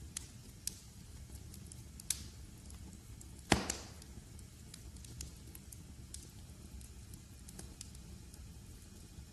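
Log fire in a fireplace crackling: scattered sharp pops over a low, steady rumble of the flames, the loudest pop coming about three and a half seconds in.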